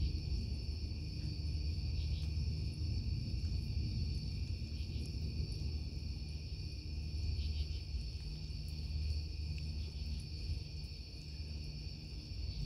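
Steady chorus of crickets and other night insects chirring, over a low rolling rumble of distant thunder that swells again about two-thirds of the way through.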